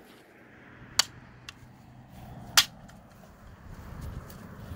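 A bat striking plastic Lego pieces: two sharp cracks, one about a second in and a louder one about a second and a half later, with a faint click between them.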